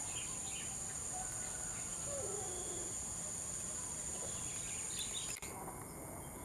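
Steady high-pitched insect buzz, with a short low zebra dove coo about two seconds in. The insect buzz cuts off abruptly about five seconds in.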